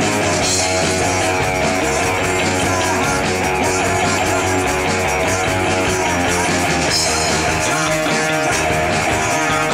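Live rock band playing: electric guitars, bass guitar and drum kit together, loud and unbroken.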